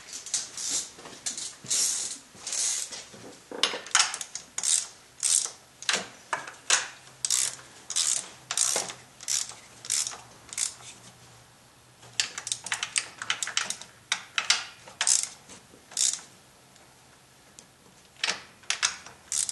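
Hand socket ratchet clicking in quick runs as it tightens the thermostat housing nuts, with a couple of short pauses between runs in the second half.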